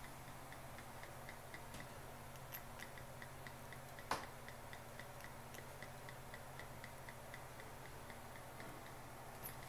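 Three-piece airlock on a glass carboy of fermenting ale ticking steadily, about four faint ticks a second, as gas from vigorous fermentation passes through it. A low steady hum lies underneath, and there is one sharper click about four seconds in.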